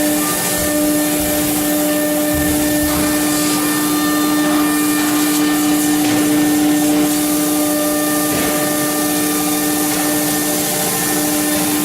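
CNC router spindle running at a steady speed: a steady whine with overtones over a broad hiss.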